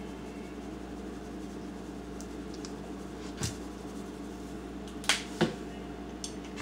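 Spice containers handled on a kitchen counter: one sharp click about three and a half seconds in and two more close together about five seconds in, over a steady background hum.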